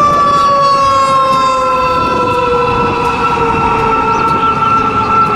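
Fire engine siren sounding continuously: a loud drawn-out tone sliding slowly down in pitch, over a second steady, higher tone.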